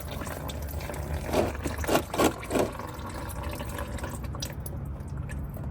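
Hot used engine oil running and dripping out of a just-loosened oil filter under a car, with a few short louder sounds about one and a half to two and a half seconds in.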